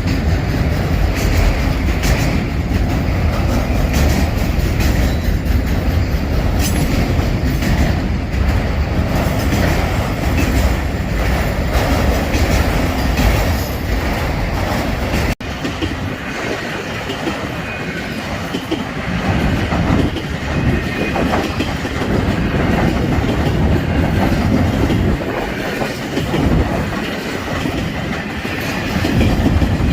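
Freight train cars rolling past, their steel wheels clicking over the rail joints in a continuous rumble. About halfway through the sound cuts out for an instant and comes back thinner in the low end.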